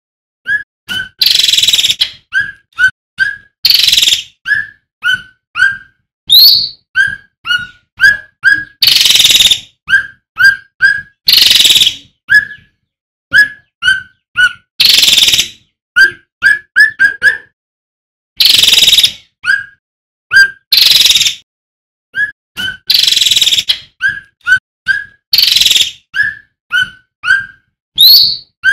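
Male cucak ranting (cucak rante) singing. Short clipped whistled notes come in quick groups of two to four, broken by loud harsh hissing notes of about half a second to a second and a few fast rising whistles.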